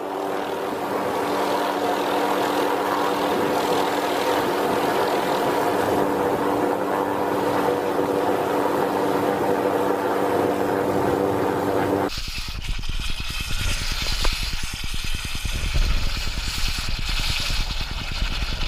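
A steady droning hum with several held tones. About twelve seconds in it gives way to a rough hiss with dense crackling and low rumbling: a scoop of molten lava being quenched in a bucket of water, boiling and steaming.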